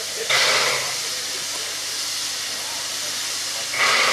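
NGG16 Garratt steam locomotive hissing steam steadily, with two louder bursts of steam about three and a half seconds apart, one just after the start and one near the end.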